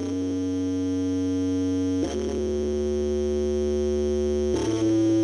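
Roland GAIA SH-01 synthesizer playing one of its patches: three long sustained tones in turn, changing about two seconds in and again about four and a half seconds in.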